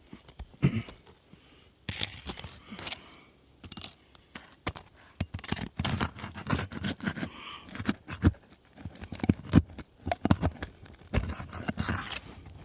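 Irregular scraping, clicks and taps as 3-tab asphalt shingles are worked loose from the roof deck.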